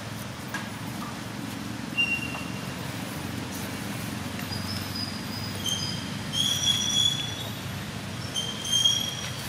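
Several short, thin, high-pitched animal calls over a steady low rumble of outdoor background noise: one about two seconds in, then a cluster in the second half, loudest near the end.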